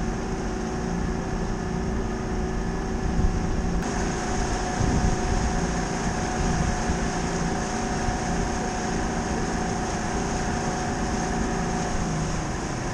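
Motorboat engine running steadily under way, with several steady tones over a broad rush of wake water along the hull. The higher whine grows slightly stronger about four seconds in.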